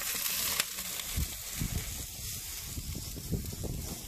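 Half chicken and corn sizzling on a hot barbecue grill: a steady hiss, with irregular low rumbling underneath.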